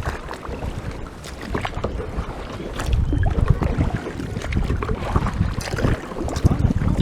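Kayak paddle strokes splashing and dripping water, with wind buffeting the microphone in a low rumble that grows stronger about three seconds in.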